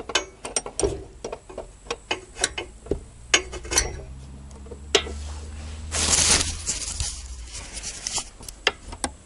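Spanner clinking on the handbrake cable adjuster of a Lada Granta as it is tightened from underneath: a scatter of sharp metallic clicks and taps. A short rustling hiss comes about six seconds in.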